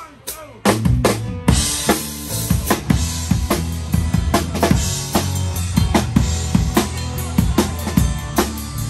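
A live band's drum kit comes in loud about a second in, with a cymbal crash, then plays a steady rock beat on bass drum and snare over sustained low bass notes.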